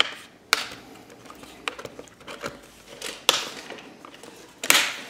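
Plastic snap clips of a Dell E7440 laptop's screen bezel clicking into place as the bezel is pressed onto the lid: about five sharp clicks spread out, the loudest near the end.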